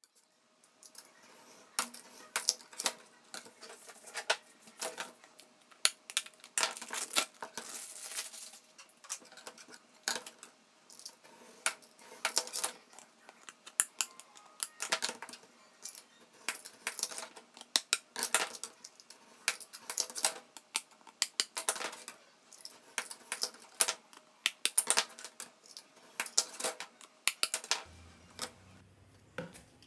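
Hand cutter working the edge of an aluminium composite panel: a long run of sharp, irregular clicks and snips, several a second with short pauses between runs.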